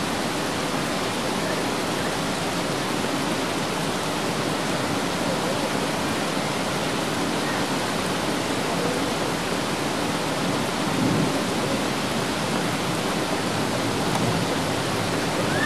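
Heavy rain pouring steadily onto floodwater, an even unbroken hiss.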